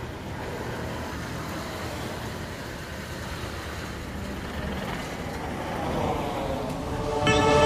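Steady low rumble of a vehicle engine. A loud held tone with several pitches sets in just before the end.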